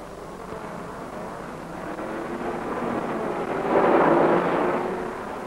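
Single-seater racing car's engine running at speed as it passes, growing louder, loudest about four seconds in, then fading away.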